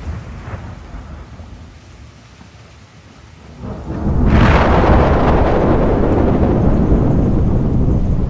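Thunder: a low rumble, then about four seconds in a sudden loud crack that carries on as a long rumble.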